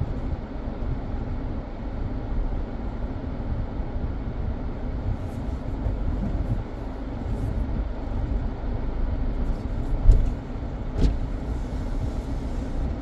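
Car driving, heard from inside the cabin: a steady low rumble of engine and road noise, with two thumps about ten and eleven seconds in.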